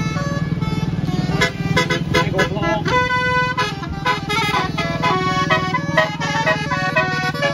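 Bus 'telolet basuri' multi-tone musical air horn playing a fast tune of short stepped notes, with one note held briefly about three seconds in, over the bus's engine running steadily.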